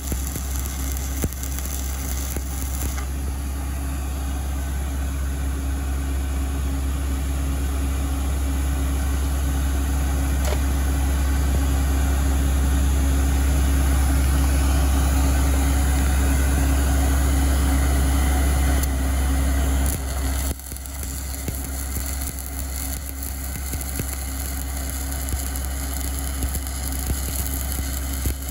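Shielded metal arc (stick) welding with a 7018 rod: the arc crackles and hisses steadily. Under it runs a loud, steady, engine-like low hum, which drops in level about twenty seconds in.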